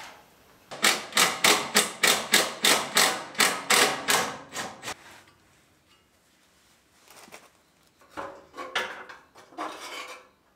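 A fast run of about sixteen hammer blows, roughly four a second, for some four seconds, then a pause and a few scattered knocks and scrapes.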